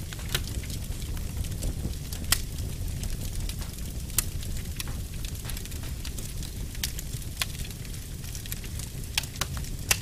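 Wood fire in a fireplace crackling: a steady low rumble of burning logs with sharp, irregular pops and snaps every second or so.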